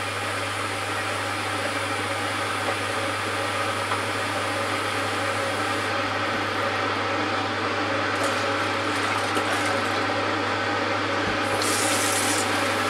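Water running steadily into a plastic fermenting bucket as it is filled for a beer kit, slowly getting a little louder, with a short extra hiss near the end.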